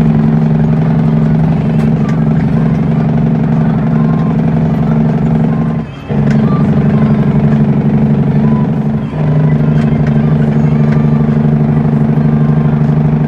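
Cummins N14 inline-six diesel of an International truck running loud and steady as the truck drives, heard from inside the cab. The engine sound breaks off briefly twice, about six and nine seconds in, as the driver shifts the 13-speed gearbox, and runs at a lower pitch after the second break.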